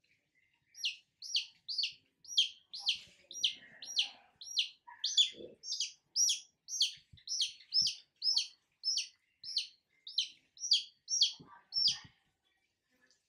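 A chicken chick giving loud distress peeps, a fast even run of short falling calls at about three a second that stops about a second before the end. A few faint knocks sound among the calls.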